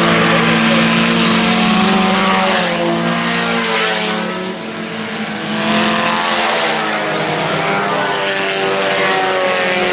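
A pack of IMCA Sport Compact race cars running hard on a dirt oval, their four-cylinder engines at high revs. The sound swells and fades as the cars pass, dropping off briefly about halfway through before building again.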